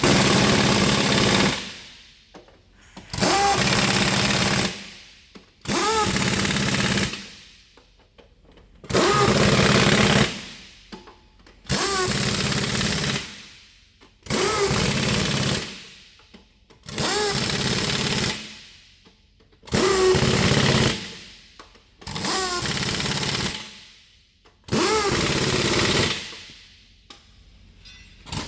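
Pneumatic air tool run in about ten regular bursts, each about a second and a half long and every two to three seconds, with a whine that rises at the start of several bursts.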